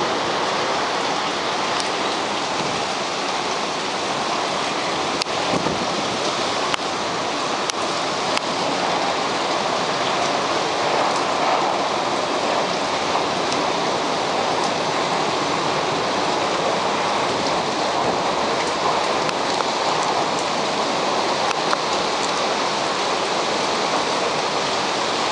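Heavy tropical-cyclone rain pouring steadily, an even dense hiss with scattered sharp ticks of drops striking nearby surfaces.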